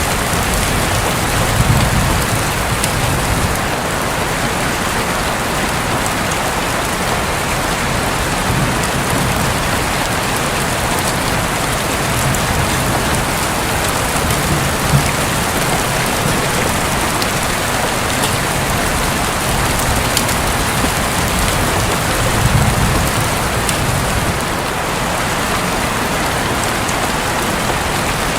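Steady heavy rain drumming on a roof, with a soft low rumble of distant thunder near the start and again about three-quarters of the way through.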